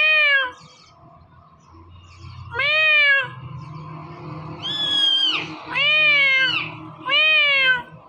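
Indian ringneck parakeet mimicking a cat's meow: a call just at the start and four more, each rising then falling in pitch.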